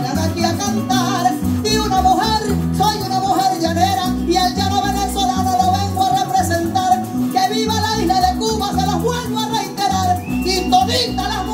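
Venezuelan llanero joropo music played between sung verses: a strummed cuatro and an electric bass keep a brisk beat under a quick, wavering melody line.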